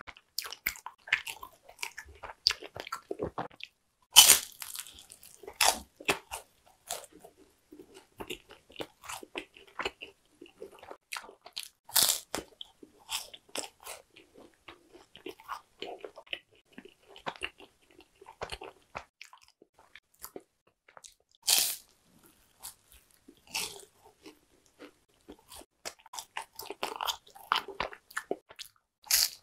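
Bites and chewing of yugwa, a crisp Korean puffed-rice snack. There are four loud crunchy bites several seconds apart, with quieter crackly chewing between them.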